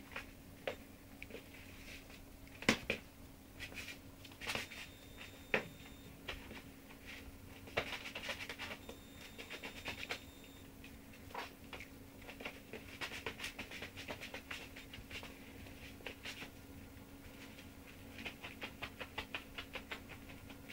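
Two small puppies scampering and tussling on a hard wooden floor, their claws clicking and pattering in quick runs, with a few sharper knocks.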